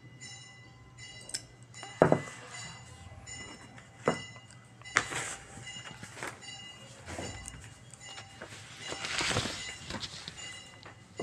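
Scissors and fabric handled on a table: several sharp knocks as the scissors cut and are set down, then cloth rustling as the fabric is smoothed near the end.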